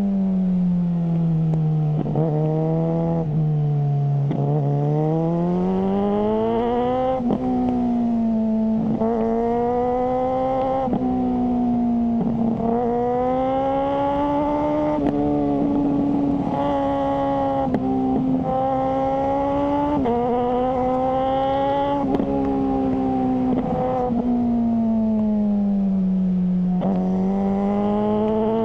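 Suzuki GSR600's inline-four engine through a GPR Ghost aftermarket exhaust, on the move: the pitch climbs and drops sharply again and again as it is shifted through the gears, with two spells of falling pitch as it slows, about a second in and again near the end.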